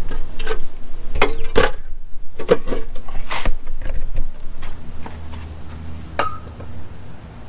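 Handling noise: a run of clicks, knocks and metallic clinks as objects are picked up and moved about, thinning out in the second half to a low steady hum with one more knock near the end.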